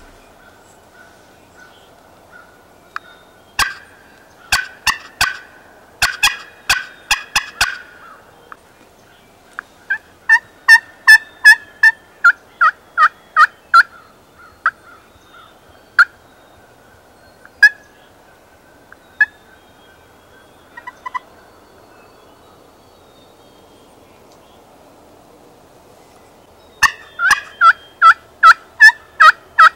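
Turkey yelping: two runs of evenly spaced yelps, about two or three a second, one in the middle and one starting near the end, with a cluster of sharper, quicker calls earlier and a few single notes between.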